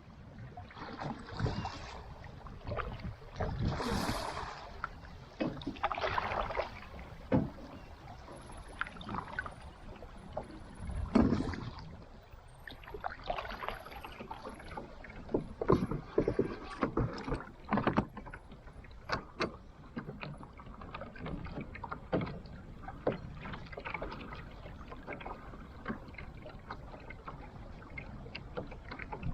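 A fishing kayak moving on river water: water splashing and sloshing, with many irregular knocks and clicks against the hull.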